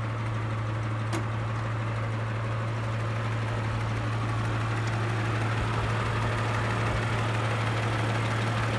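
1933 Rolls-Royce Phantom II's straight-six engine idling steadily, with a single click about a second in.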